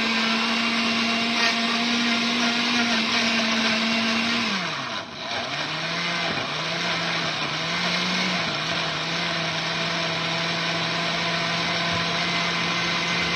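Countertop blender running as it blends blackberries into juice. Its motor note drops sharply about five seconds in, wavers for a few seconds, then holds steady at a lower pitch.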